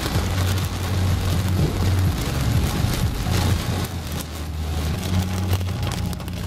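Heavy cloudburst rain drumming on a moving car's roof and windscreen, heard from inside the cabin, over a steady low rumble from the car.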